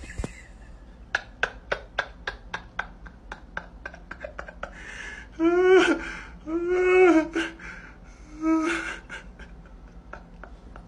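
A person laughing softly in short breathy huffs, about three a second, then a dog grumbling back in three drawn-out moans that rise and fall in pitch, the last one shorter.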